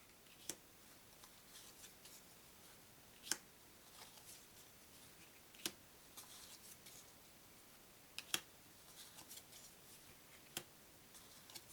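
Thin playing cards handled and sorted one at a time: a short sharp card tap or snap every two to three seconds, a close pair of them just after eight seconds, with faint papery rustling of cards sliding between.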